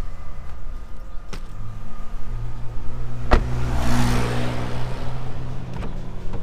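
Car engine running with a steady low hum, with a sharp click about three seconds in and a rush of noise that swells and fades after it.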